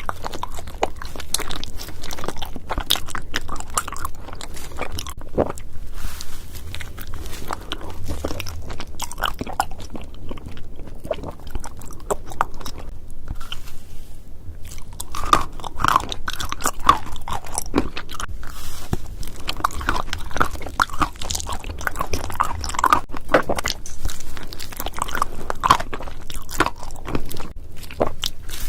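Close-miked eating of cotton candy with honey jelly: a steady run of crunchy bites and chewing, with irregular crackles all through and densest in the second half.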